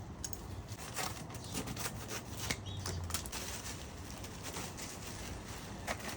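Light rustling and scattered small clicks of packaging and parts being handled during unpacking.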